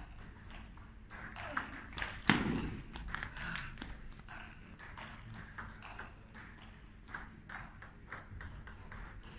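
Table tennis balls clicking: a stream of irregular light pings of balls bouncing on tables and paddles in a hall, with one louder thud about two seconds in.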